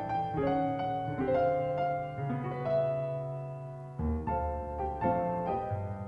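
Solo piano playing a slow melodic passage in chords. A chord is held and dies away in the middle, then a new phrase starts about four seconds in with deep bass notes.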